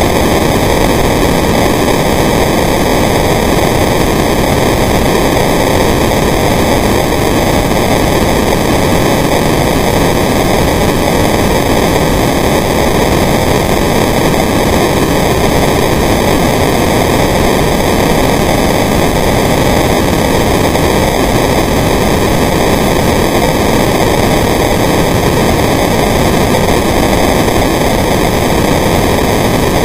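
A loud, steady hiss that stays the same throughout, with no bubbles, knocks or other events standing out.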